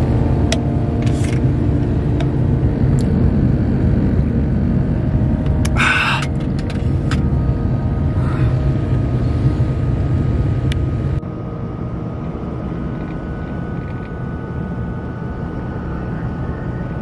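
Vehicle running, heard from inside the cab as a steady low rumble, with handling knocks and a brief rustle on the microphone. About eleven seconds in it drops suddenly to a quieter steady hum of the vehicle driving on a snow-covered road.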